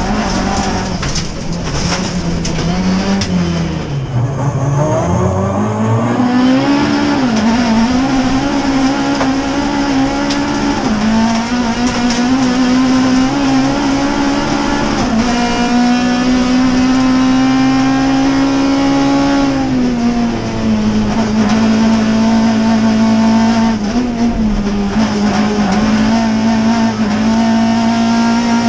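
Rallycross car's engine heard from inside the cockpit, running hard at high revs and held fairly steady. The pitch drops briefly as the driver lifts about four seconds in and again around twenty seconds in. Sharp clicks of gravel sound in the first few seconds while the car is on the loose surface.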